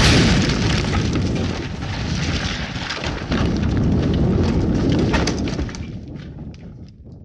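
Explosion sound effect: a sudden blast that runs on into a long, deep rumble with crackling debris, swells again about three seconds in, then fades away near the end.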